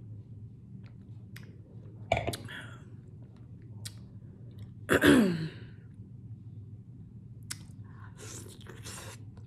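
Close-up eating sounds of a person chewing rotisserie chicken and potatoes in sauce: wet chewing and mouth clicks over a steady low hum, with a short falling voiced sound about five seconds in.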